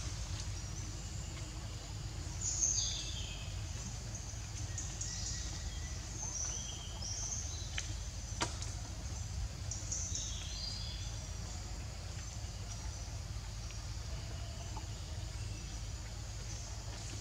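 Outdoor ambience: a steady low rumble, with a run of short, high, falling chirps from about two and a half to eleven seconds in and a single sharp click at about eight and a half seconds.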